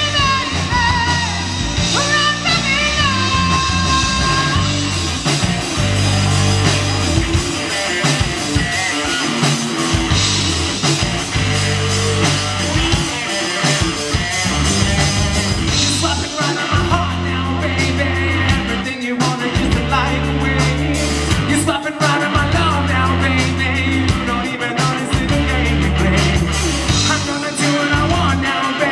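Live rock band playing: a male singer with electric guitar, bass guitar and a drum kit.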